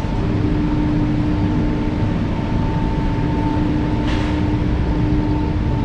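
Steady drone of workshop machinery, with a constant hum over a low rumble and a short hiss about four seconds in.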